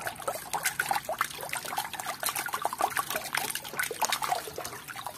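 A hand sloshing and splashing through muddy water in a plastic basin, washing mud off toys: irregular swishes and dribbles that die away near the end.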